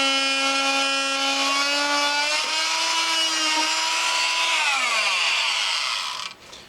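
Oscillating multi-tool with a hardwood blade running at a steady buzz while cutting a groove into a rubber turf tire. About five seconds in it is switched off and its pitch falls as it winds down.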